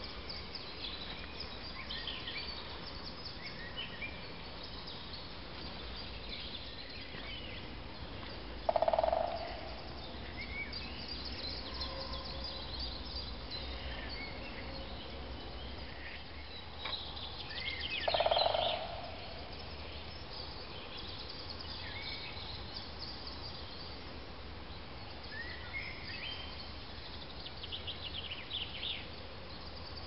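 Woodland birds singing and calling: many short, high chirps and trills, with two louder, lower calls, one about nine seconds in and one about eighteen seconds in.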